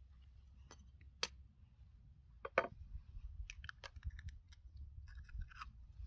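Sporadic small clicks and crackles of gloved hands working a raw chicken drumstick, one sharper click about halfway through and a quick run of crackles in the second half, over a steady low rumble.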